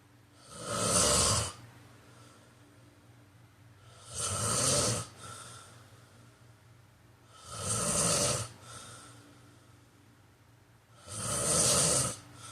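A sleeping person snoring: four snores about three and a half seconds apart, each lasting about a second, the first three each followed by a fainter short breath.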